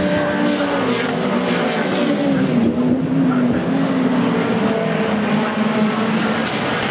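Several race car engines running on the circuit at once. Their pitch slides down over the first couple of seconds, then holds fairly steady.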